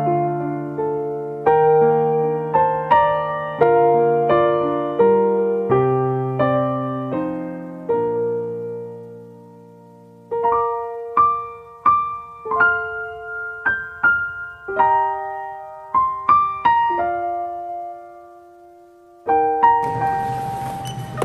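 Soft piano music, single notes and chords struck and left to ring, pausing twice. Near the end a hiss of other sound comes in under the piano.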